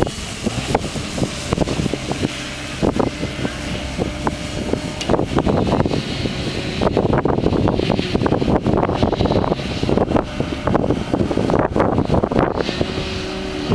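Wind buffeting the camera's microphone in uneven gusts, a low rumble broken by frequent rough blasts, heavier from about five seconds in.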